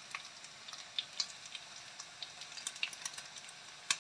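Skewered chicken malai tikka shallow-frying in oil and butter in a pan: a steady sizzle with frequent sharp little pops and crackles.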